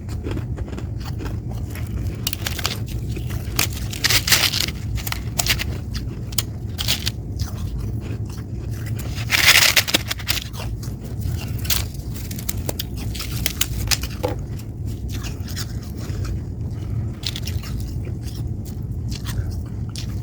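Freezer frost being scraped up and crunched between the teeth in irregular crackly bursts, the loudest about nine and a half seconds in. A steady low hum runs underneath.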